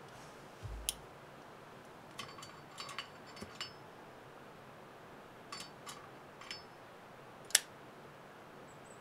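Light metallic clicks and clinks, some briefly ringing, as the panels of a folding metal box stove and a brass spirit burner are handled and fitted together. They come in small scattered groups, with one sharper, louder clink near the end.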